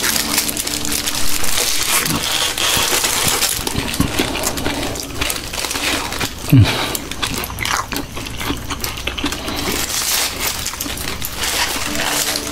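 Aluminium foil wrapped around shawarma crinkling and rustling in the hands as the wraps are held and bitten, mixed with close-miked chewing. A brief falling 'mm' hum about halfway through.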